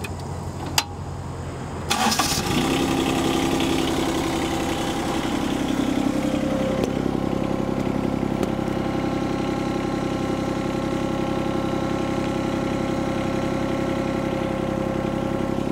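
Yanmar 3TNV70 three-cylinder diesel of a John Deere 2653B mower cranked by the starter and catching within about half a second, then idling steadily. A single sharp click about a second in, before the cranking.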